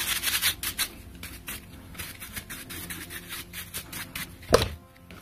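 Quick strokes of a bristle brush scrubbing over a small plastic drill part, cleaning it, with one louder knock about four and a half seconds in.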